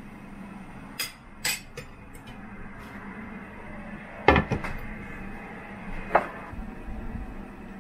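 Metal serving spoon clinking and scraping against a frying pan as food is dished out, then a glass pot lid set down on the pan with a clatter of several knocks about four seconds in, and one more ringing clink near the end. A steady low hum runs underneath.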